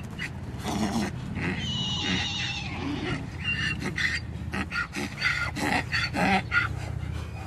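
Horses coming in across the barnyard: hooves striking the ground over and over, mixed with animal calls, one of them a wavering high call about two seconds in.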